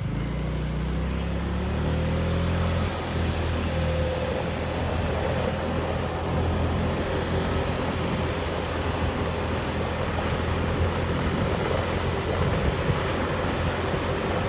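Small motorbike engine pulling away, its pitch rising over the first couple of seconds, then running steadily while riding, with wind rushing over the microphone.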